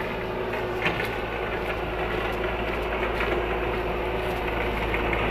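Truck engines running steadily under load: a small truck straining to tow a stuck, heavily loaded truck on a cable.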